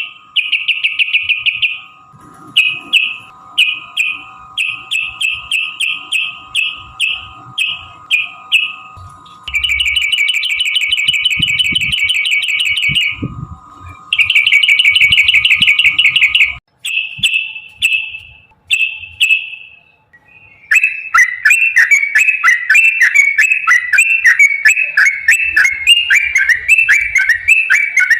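Yellow-vented bulbul (trucukan) singing: short repeated bubbly notes, two long rapid trills in the middle, then a long unbroken run of fast chattering phrases in the last third (the 'ropel panjang' song). A faint steady high tone runs under the first half.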